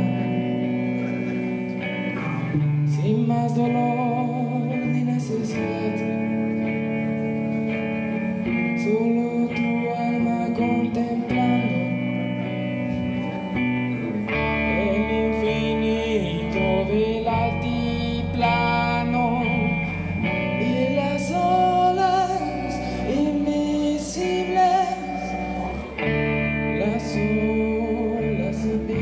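A rock band playing live: electric guitars with a sung melody over them. A low bass line comes in about halfway through and gets stronger a few seconds later.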